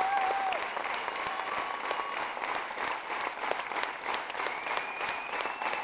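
Large theatre audience applauding steadily at a curtain call, a dense patter of many hands clapping. A held high tone over the clapping fades out about half a second in, and another appears near the end.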